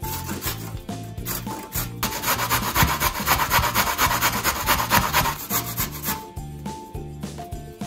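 A carrot being grated on a stainless steel grater, a fast run of rasping strokes from about two seconds in until about six seconds, over background music.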